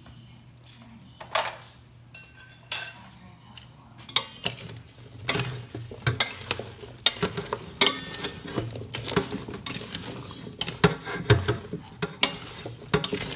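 Chopped cucumber being tossed with salt in a stainless steel bowl: a utensil clinks and scrapes against the metal and the wet pieces shift. It is sparse at first and becomes a dense, irregular run of clicks and knocks from about four seconds in.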